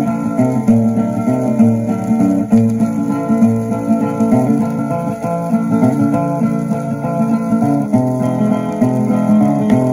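An old 78 rpm shellac record playing on a turntable: acoustic guitar picking and strumming a steady country melody.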